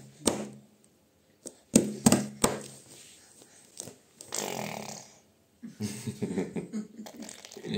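A baby blowing wet raspberries and making buzzy, fluttering lip sounds, with a few sharp knocks in the first few seconds.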